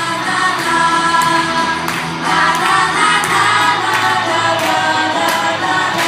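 Music: a group of voices singing together over an instrumental backing track with a light, regular beat.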